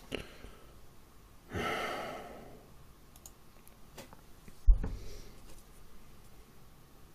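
A man sighing heavily, about a second and a half in. A little later comes a loud, deep thump close to the microphone, with a few faint clicks around it.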